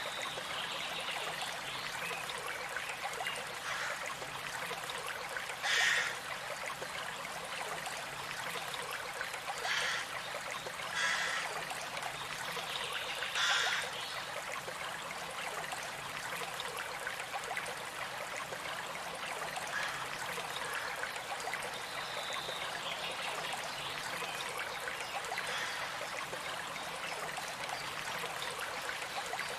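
Running stream trickling steadily, with four brief louder bursts in the first half.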